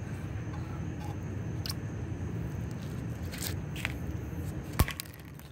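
Steady outdoor background rumble with a few faint ticks, and one short, sharp click just before the end.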